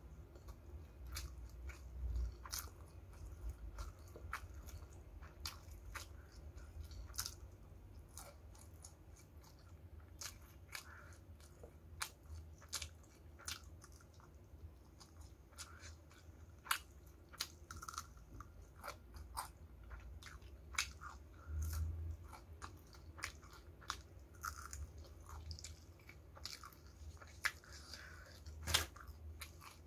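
Someone chewing and biting crispy battered fried chicken (ayam geprek), giving many sharp, irregular crunches and mouth clicks.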